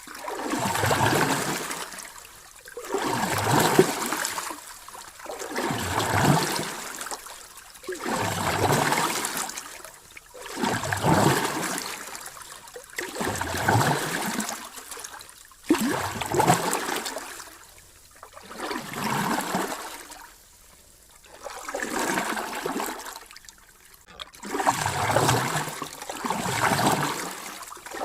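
Ocean waves washing in and drawing back, a rushing surge about every two to three seconds, each one swelling up and fading away.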